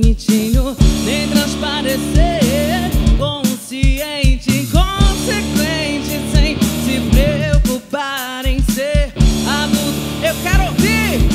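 Live rock band playing: a woman singing lead over electric guitar, bass guitar and a drum kit.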